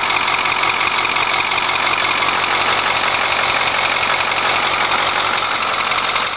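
International Harvester DV550 9.0-litre V8 diesel engine idling steadily.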